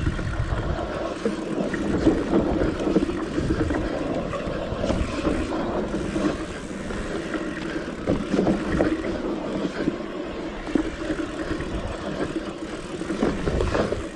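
Mountain bike riding fast down a dirt trail: steady tyre rumble with the bike rattling and knocking over bumps, and wind buffeting the microphone.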